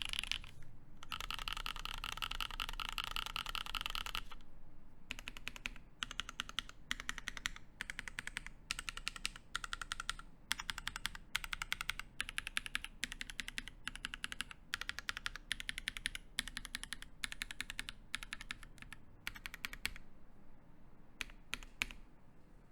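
Typing on a D65 mechanical keyboard with lubed NK Cream linear switches, GMK keycaps and an aluminium plate. A fast, dense run of keystrokes for the first few seconds, then word-length bursts of keystrokes with short pauses between, and a few last key presses near the end.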